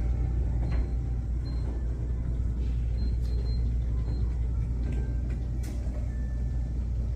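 A steady low mechanical hum, with a few faint short high-pitched tones and light ticks over it.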